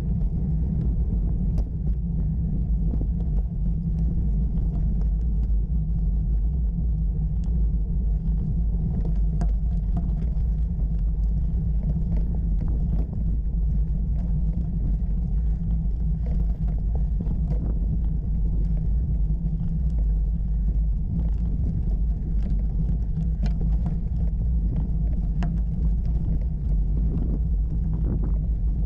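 Steady low rumble of a bicycle riding over a rough, gravelly road, heard through a camera mounted on the bike, with scattered small clicks and rattles.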